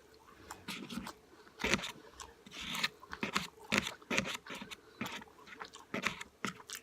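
Close-up chewing of a mouthful from a Chipotle burrito bowl: irregular wet mouth clicks and smacks, with short crunching bursts.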